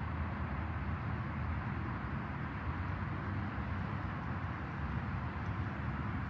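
Pressure washer running steadily: a low motor-and-pump hum with the hiss of the water spray.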